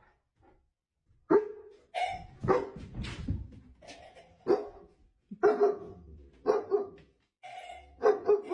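A dog barking repeatedly, about ten short barks at irregular intervals, starting about a second in.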